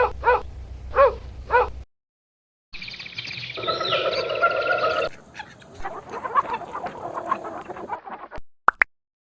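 A few short, evenly pitched yelping calls, then, after a brief pause, a longer stretch of clucking chickens with overlapping calls. Two sharp clicks come near the end.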